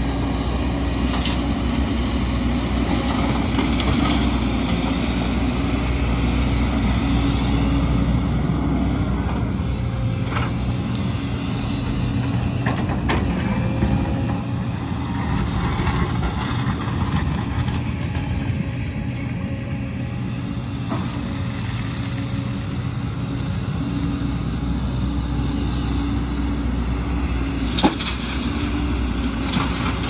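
JCB tracked excavator's diesel engine running steadily under load as it digs and loads earth, with a few knocks of the bucket on rock and soil, the loudest a sharp knock near the end.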